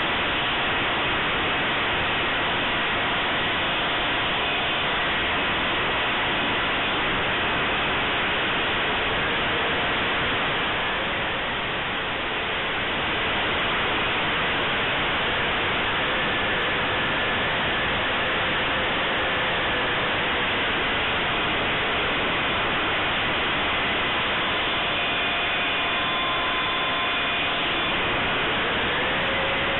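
Electric ducted fan of a 70 mm RC jet model, heard from an onboard camera in flight: a steady rush of fan and air noise with faint whines that drift slowly in pitch. The sound eases slightly for a moment about twelve seconds in.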